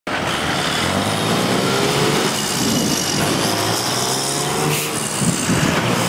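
Street traffic: several vehicle engines running, their pitch rising and falling as they move, over a steady hiss of road noise.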